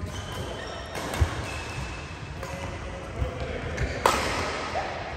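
Badminton doubles rally: racket strokes on the shuttlecock and players' footfalls on the court. The loudest is a sharp crack about four seconds in, an overhead smash.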